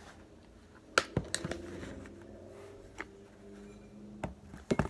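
Handling noises from a container being picked up and opened: a cluster of sharp clicks and taps about a second in, then single knocks near the middle and end, over a faint steady hum.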